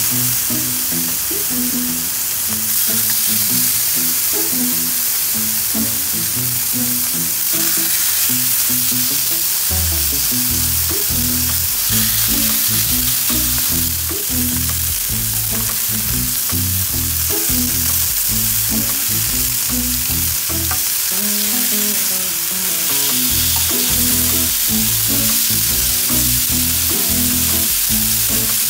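Ribeye steaks sizzling on a hot Blackstone flat-top griddle oiled with grapeseed and avocado oil, a steady frying hiss. Background music runs underneath, its bass line growing stronger about ten seconds in.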